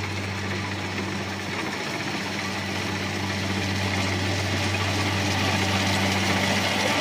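Rice combine harvester engine running steadily: a constant low hum under a broad mechanical rush that grows slightly louder.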